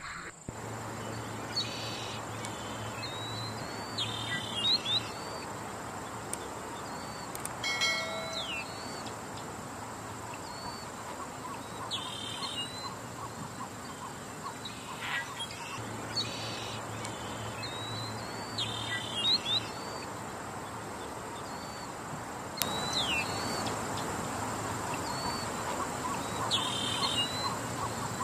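Birds chirping with short, high calls that come in groups every few seconds, over a steady outdoor background hiss.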